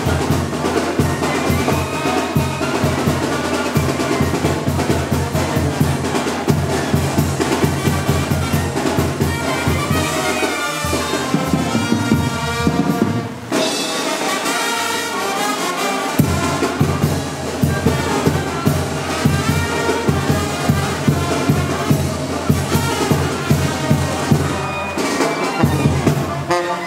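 Brass band music: trumpets and trombones playing a melody over a steady drum beat. The low drum drops out for a couple of seconds midway, then comes back in.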